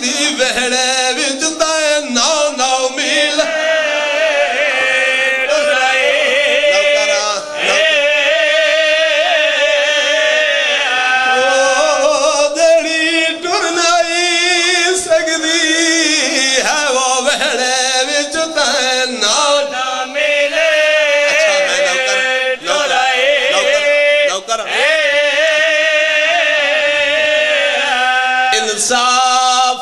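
A man's voice chanting a mournful elegy in long, melismatic phrases, the held notes wavering with heavy vibrato: a zakir's sung lament recited at a Shia majlis.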